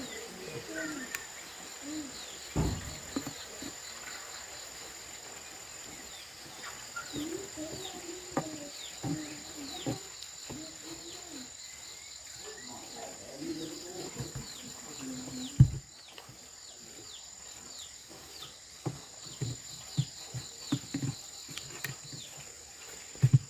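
Outdoor ambience: a steady high insect trill with many short falling chirps from insects or birds, wavering low animal or distant voice sounds, and scattered knocks and clicks, one sharp knock louder than the rest about two-thirds of the way through.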